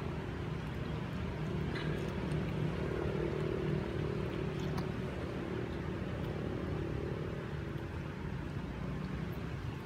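A motor engine hums steadily, growing louder about three seconds in and then easing off, with a few faint clicks over it.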